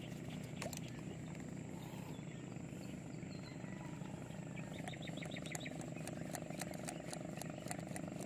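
The fishing airgun's line reel clicks as line pays out after a shot into a fish. The sharp clicks come faster in the second half, over a steady low rumble, with a quick run of short high chirps about five seconds in.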